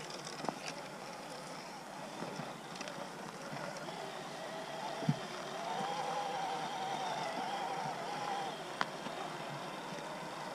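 Electric motor and gear drive of a Rochobby 1941 Willys MB 1:6 RC scale crawler whining as it drives. The whine swells about four seconds in, holds for a few seconds, then drops back, with a couple of sharp knocks along the way.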